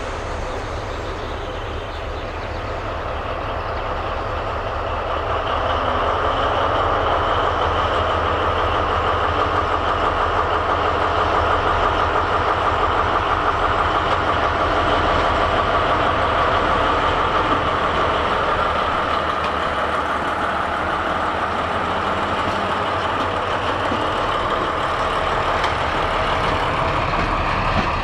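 Diesel locomotive running light with its engine running steadily, growing louder over the first few seconds as it draws near and then holding at close range.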